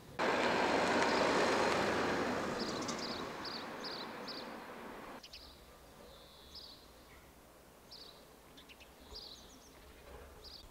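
A loud rushing noise starts suddenly, slowly fades and cuts off abruptly about five seconds in. Small birds chirp briefly and repeatedly throughout.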